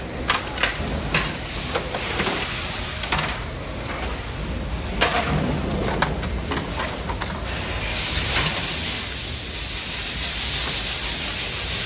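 Clicks and knocks of plastic and metal panels on a Konica Minolta bizhub C308 copier as its front cover is opened and the parts inside are handled. About eight seconds in, a steady hiss sets in.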